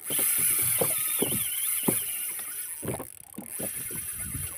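Fishing reel's drag screaming, a high-pitched buzzing whine, as a big yellowfin tuna strips line on a run; it fades after about three and a half seconds. Irregular low knocks sound underneath.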